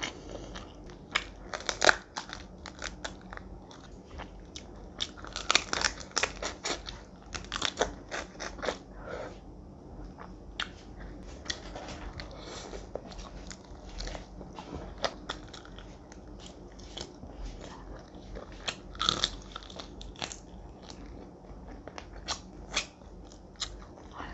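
Close-miked chewing and crunching as fried food is bitten and eaten by hand, with crisp crunches coming in clusters, the loudest about two seconds in and again around six and nineteen seconds in.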